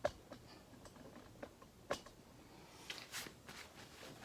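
Faint, scattered light clicks and taps, about eight of them, from handling plastic wall switches and their mounting hardware.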